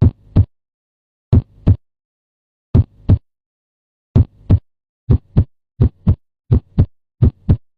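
Heartbeat in its lub-dub rhythm: paired thumps with silence between, slow for the first few beats, then speeding up to roughly twice the pace about five seconds in.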